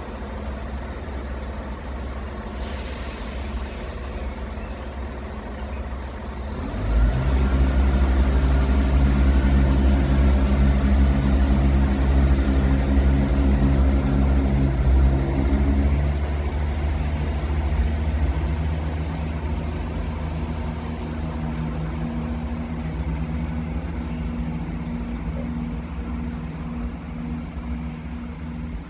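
Diesel train at the platform: a short burst of air hiss about three seconds in, then the engine revs up sharply about seven seconds in and runs loud for about nine seconds as the train pulls away, before easing back to a lower, steady engine drone.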